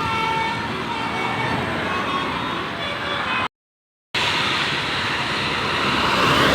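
Tour bus 'basuri' multi-tone musical air horn sounding gliding tones over bus engine and road noise. The sound cuts out completely for about half a second in the middle, then comes back as a louder, noisier rush near the end.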